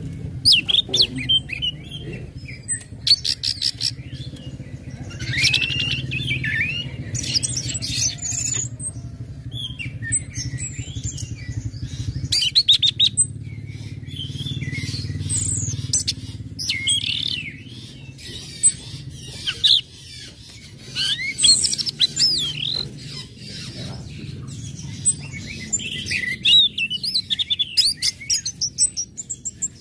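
Orange-headed thrush singing a fast, varied song of chirps, whistled phrases and rapid rattling trills, over a low steady hum.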